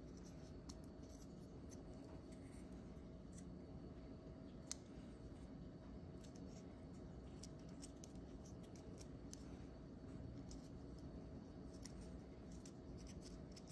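Faint small clicks and light handling noise from fingers working a tiny camera image-sensor circuit board and its plastic lens mount, over a low steady room hum. One sharper click comes a little under five seconds in.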